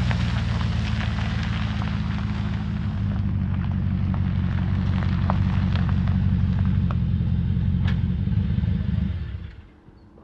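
Chevrolet Silverado pickup's engine running with a deep, steady rumble, small crackles of tyres on gravel over it, then the engine shuts off about nine seconds in.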